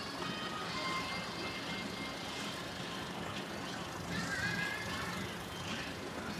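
Steady mechanical hum of an engine generator over a wash of city background noise, with a few faint, brief high squeaks about four seconds in.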